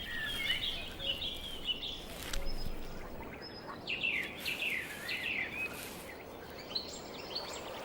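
Birds calling over a steady outdoor hiss: scattered chirps early on, then a quick run of downward-slurring calls about four to five seconds in.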